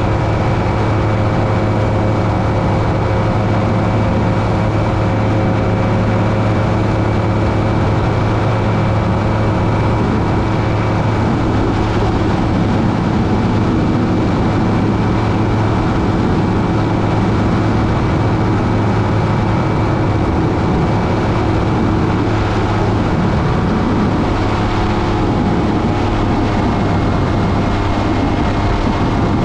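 Aerolite 103 ultralight's two-stroke engine running steadily in cruise flight, with wind rushing over the airframe and microphone.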